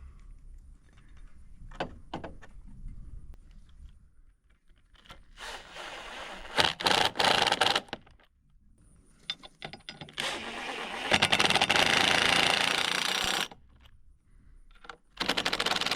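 Power drill driving screws in several bursts: a few short runs, then one long run of about three seconds, then another short one near the end.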